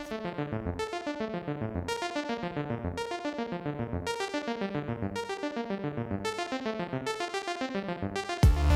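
Electronic keyboard music, synthesizer or electric piano, playing a quick, even run of repeated arpeggiated notes. A loud low hit comes near the end.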